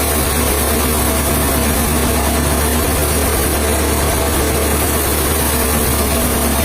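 An engine running steadily at an even speed with a low hum, with no change in pitch or load.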